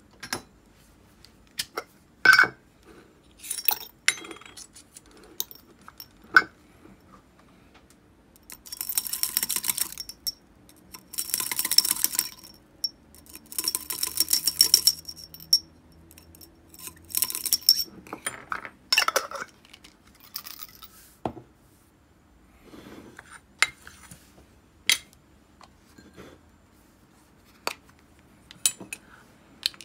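Small metal baitcasting-reel parts clinking against steel parts cups and glass as they are handled, with scattered sharp clicks. Through the middle come four rattling bursts of a second or so each as a small glass jar holding parts in cleaning liquid is shaken.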